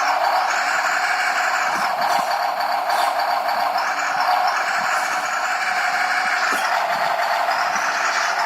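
RC-car engine sound-effect module playing a simulated engine through its small speaker, thin with no deep bass. A high whine in the sound swells and eases back several times.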